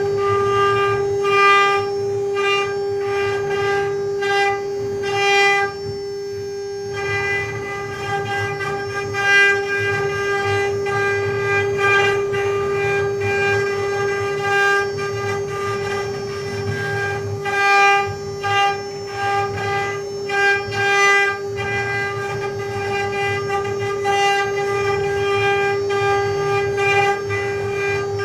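Mini CNC router's spindle whining at a steady pitch while its bit carves a wooden relief picture, with uneven scratchy bursts of cutting noise on top. The cutting noise drops away for about a second around six seconds in while the whine carries on.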